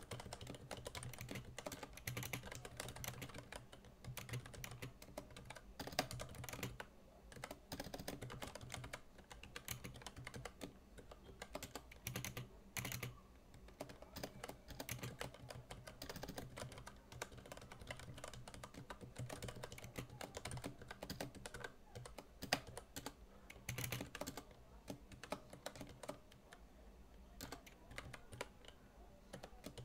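Typing on a computer keyboard: quick, irregular runs of key clicks with short pauses, a few strokes louder than the rest.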